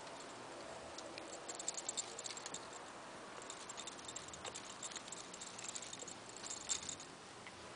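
Persian kittens playing with a small plastic ball toy: light clicks, rattles and scrabbling come in short flurries, loudest near the end.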